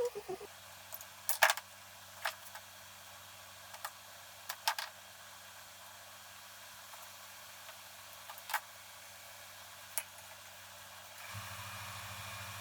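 A handful of short, sharp clicks and light taps, irregularly spaced, over a steady low hum; the hum and background noise get louder about 11 seconds in.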